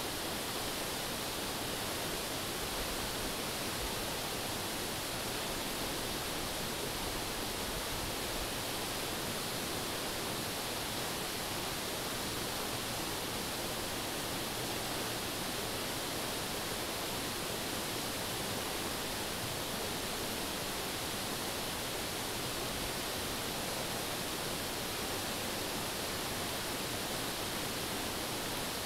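Steady rush of a mountain river running over rocks and small rapids.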